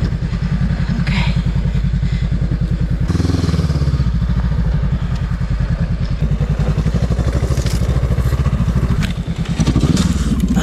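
Honda CB500X's parallel-twin engine running at low revs with a steady, rapid pulse as the motorcycle rides slowly over sandy dirt. Near the end the revs rise briefly as the bike goes down in loose sand.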